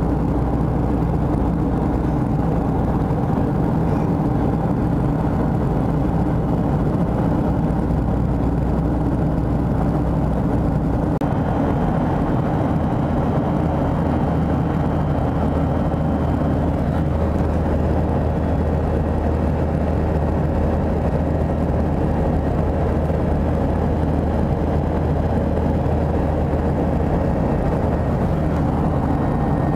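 Steady cabin noise of a Boeing 737-700 in flight: the drone of its CFM56 jet engines and the rush of air past the fuselage. The low hum steps up slightly in pitch about eleven seconds in.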